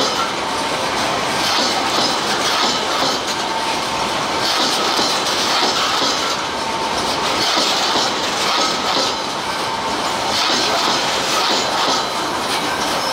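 Loaded coal hopper wagons of a freight train rolling past, their steel wheels clattering over the rail joints. The sound swells every few seconds as each wagon goes by.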